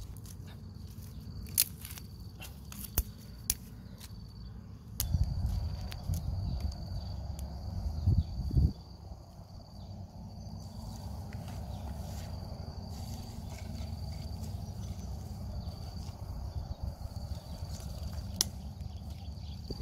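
Dry twigs and sticks snapping and knocking as they are broken and laid onto a small kindling fire: a few sharp cracks, with a louder stretch of rustling and cracking about a quarter of the way in. A steady high insect drone runs underneath, over a low rumble.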